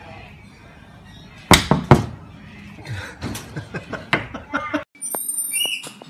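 Two loud sharp bangs about half a second apart, then a scatter of lighter knocks and clatter.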